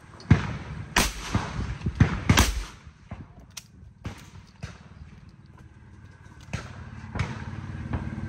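Shotguns firing at sporting clays: a quick series of sharp reports in the first two and a half seconds, then a quieter stretch with a few fainter knocks.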